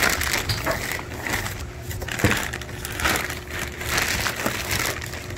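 Plastic box liner and bagged fish being handled: irregular rustling and crinkling of plastic sheet as hands pull it back and dig through the bags, with one sharper crackle a little over two seconds in.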